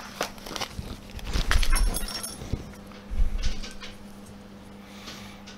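Small steel screws and nuts clinking as they are handled, with a plastic parts bag rustling. Scattered sharp clicks and a brief metallic jingle come about two seconds in, and dull knocks on the desk are loudest about one and a half and three seconds in.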